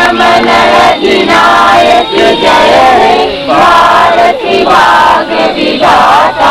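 A group of voices singing together in chorus, loud, in phrases of about a second with short breaks between them.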